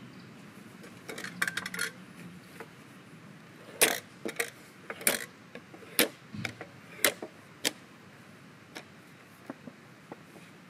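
Light clicks and then a run of sharp wooden and metal knocks as a small folding wooden camp table with metal corner fittings is handled and unfolded. The knocks come about ten times between 4 and 8 seconds in and then trail off to a few faint taps.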